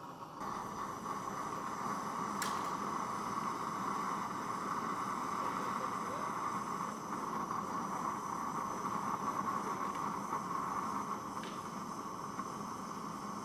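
Handheld gas torch flame burning with a steady hiss as it melts lead in a can. A light click sounds about two and a half seconds in.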